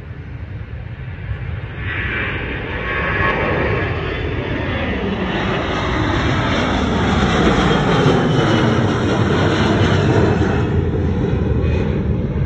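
Jet airliner's engines passing close by: the noise builds over the first few seconds and stays loud, with whining tones that fall in pitch as it goes past.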